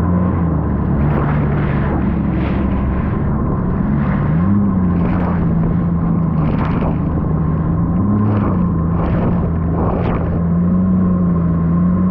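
Jet ski engine running at a steady pitch that rises and settles back three times with the throttle, with repeated short rushes of noise over it.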